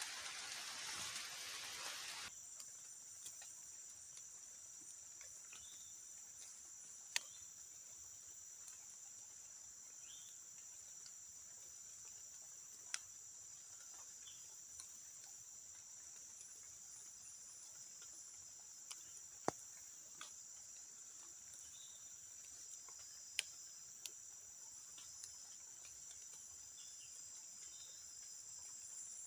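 Heavy rain hiss that stops abruptly about two seconds in, leaving a faint, steady high-pitched chorus of crickets and other night insects. A few sharp isolated ticks sound throughout.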